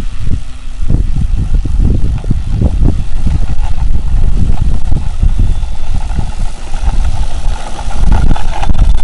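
Model airplane motor and propeller running at low throttle while taxiing toward the microphone, growing louder and steadier in the last few seconds, under heavy wind buffeting on the microphone.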